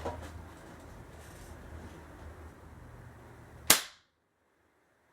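A single sharp crack as a multi-pump pneumatic air rifle fires, charged with ten pumps, about three-quarters of the way through.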